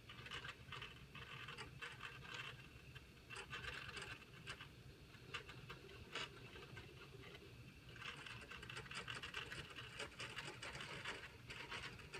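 Baxter robot arm's joint motors whirring faintly in bursts as the arm carries a gripped object, with light scratchy noise and a few small clicks.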